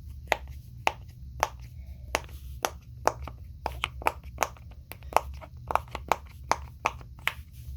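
Silicone bubbles of a pop-it fidget toy being pressed one after another, a quick, irregular series of sharp little pops, about three a second.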